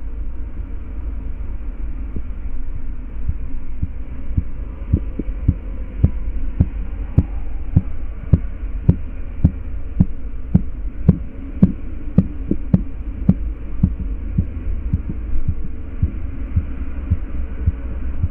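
Korotkoff sounds heard through a stethoscope as a blood-pressure cuff deflates: a regular pulse of short taps, a little under two a second, over a steady low rumble. The taps begin about four and a half seconds in and fade away after about fourteen seconds.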